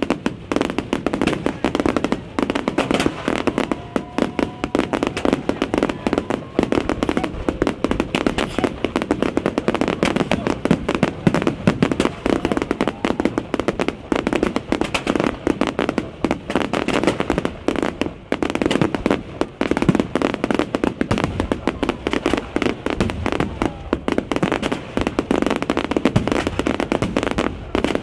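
Fireworks display in full barrage: shells and crackers bursting in rapid, unbroken succession, one loud bang tumbling over the next.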